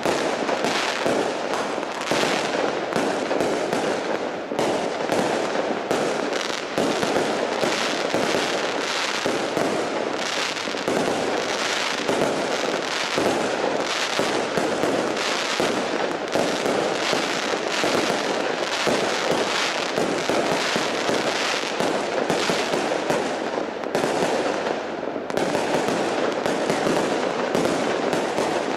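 Large professional fireworks display: aerial shells bursting in rapid succession, the bangs overlapping into a continuous, loud barrage without a pause.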